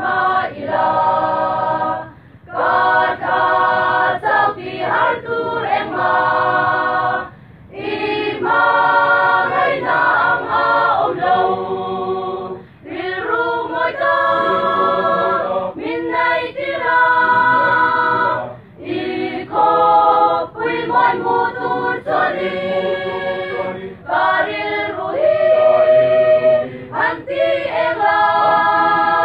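Mixed choir of young women and men singing a cappella in harmony. The song goes in phrases of about five seconds, with short breaks for breath between them.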